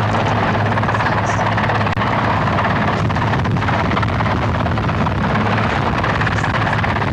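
Large helicopter in flight overhead, giving a loud, steady drone of rotor and engine with a constant low hum underneath.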